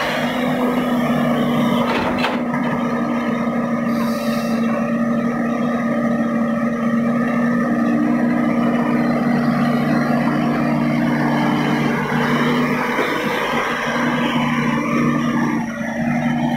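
Komatsu hydraulic excavator's diesel engine running under load as it digs and swings, a steady drone. A sharp knock comes about two seconds in and a brief hiss about four seconds in.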